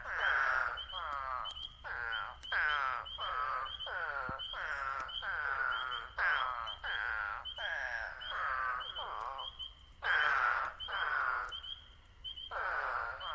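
Several eastern spadefoot toads calling in a chorus, giving short "waaah" calls, each about half a second long and falling slightly in pitch, overlapping one after another. Spring peepers give short, high peeps throughout.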